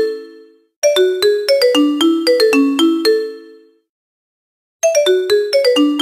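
Phone ringtone: a short, bright melody of quick marimba-like notes, looping. One phrase dies away at the start, the melody plays again about a second in and fades out, and after a second of silence it starts once more near the end.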